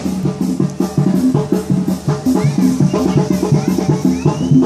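Band music with drums and a steady beat. In the second half a few rising whistles come from the burning fireworks tower.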